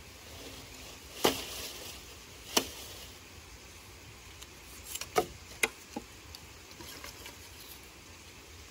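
Sharp knocks of hard objects striking, about six in all: one a little over a second in, another about a second later, then a quick run of four around the middle.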